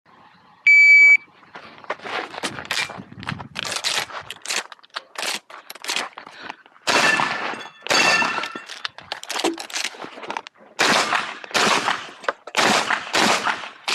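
A shot-timer start beep, then a string of shotgun shots fired at an uneven pace through a competition course of fire, some shots a fraction of a second apart and others with pauses between them.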